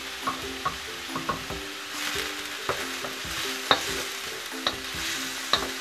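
Minced onion and ginger sizzling in hot oil in a nonstick wok, stirred with a wooden spatula that clicks and scrapes against the pan a dozen or so times.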